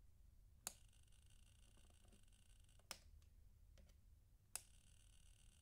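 Faint clicking from a homemade 555-timer LED dice: three sharp clicks about two seconds apart, with a few weaker ticks between them and a faint high buzz after the first and last clicks.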